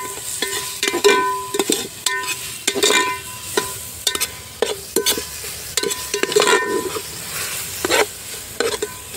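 A steel spoon scraping and knocking against an aluminium pot while stirring chopped onion and tomato frying in oil, each knock leaving the pot ringing briefly, over a steady sizzle.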